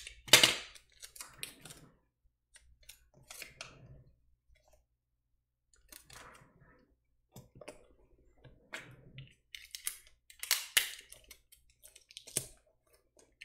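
Intermittent scratching and rustling: a Sharpie marker scribbling over address labels on cardboard shipping boxes, with the packages being handled. The sound comes in short clusters of scratchy strokes and clicks with pauses between them.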